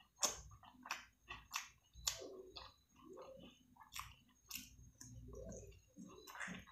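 Close-miked chewing of fried rice and chicken eaten by hand: a steady run of sharp, wet mouth clicks and smacks.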